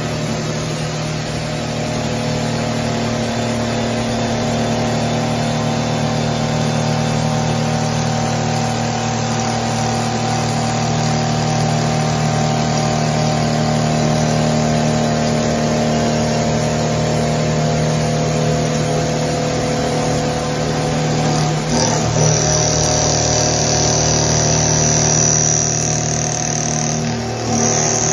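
CNC vertical milling machine cutting steel, its spindle and end mill making a steady hum of several tones. A high thin whine joins about three-quarters of the way through, with two brief dips in the sound.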